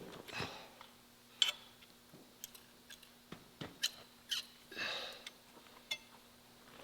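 Scattered light clicks and taps of steel being handled in a bending jig, with a brief scraping rustle about five seconds in, over a faint steady hum.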